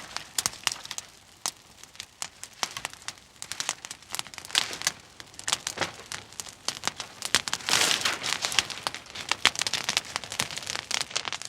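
Burning forest vegetation crackling and popping: irregular sharp snaps, thickening into a denser rush of crackle about eight seconds in.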